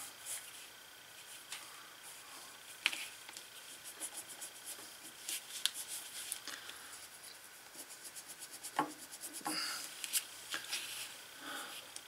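Dried glue being picked and rubbed off a leather strap by hand: faint, uneven scratchy scraping with many small ticks and a few sharper clicks.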